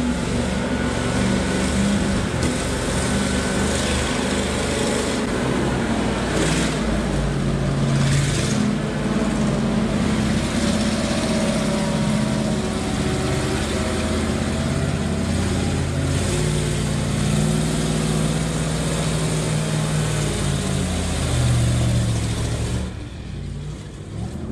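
Heavy multi-axle off-road truck's engine running hard as it crawls over sand mounds, its pitch rising and falling as it revs. Near the end the sound drops in level and changes to a different truck engine.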